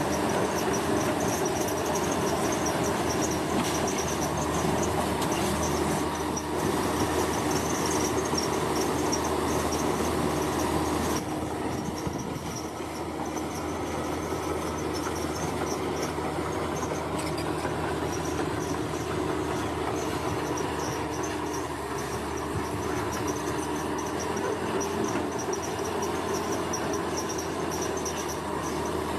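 Heavy construction machine's diesel engine running steadily, with a few held low tones, while insects chirp in a high pulsing trill; the level drops slightly about eleven seconds in.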